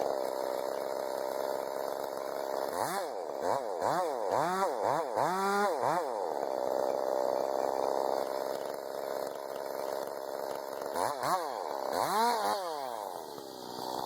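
Chainsaw engine running, its throttle blipped up and down several times in quick succession about three seconds in, and again a few times near the end.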